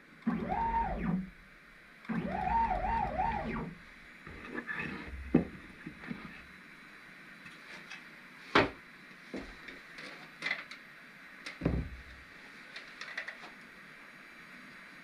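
CNC router's stepper motors whining as the axes jog, twice near the start, the pitch rising, holding and falling with each move. A few sharp clicks and knocks follow.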